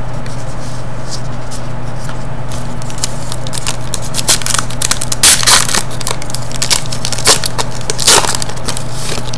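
Foil trading-card pack wrapper crinkling and tearing as it is ripped open by hand, in sharp crackles that get busier and louder about halfway through, over a steady low hum.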